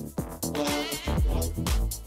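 Electronic dance music from a DJ mix: a steady kick drum about twice a second over a deep bass line.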